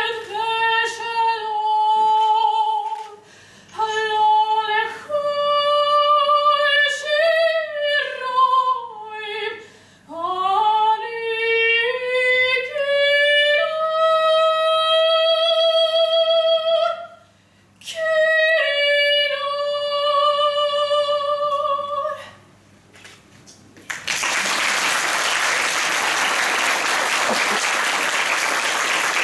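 A woman singing solo, holding long notes with some sliding pitch changes. The song ends about 22 seconds in, and after a brief pause an audience applauds.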